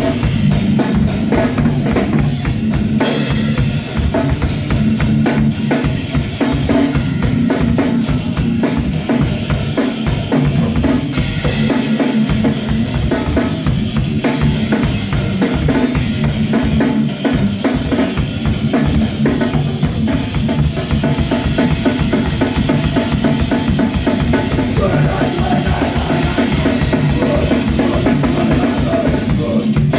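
Live band playing loud rock music, with the drum kit's bass drum and snare strongest in a dense mix.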